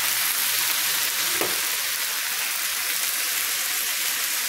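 Braised cabbage, carrots, peppers and onions sizzling steadily in a pan on the stove, an even frying hiss.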